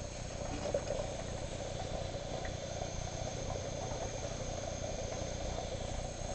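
Homemade pipe steam boiler running under its propane burner: a steady, even noise with a fluttering texture and no breaks.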